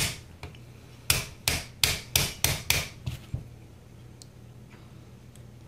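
Sharp tapping knocks in a quick, even series, about three a second, through the first three seconds. Then they stop and only a couple of faint clicks follow.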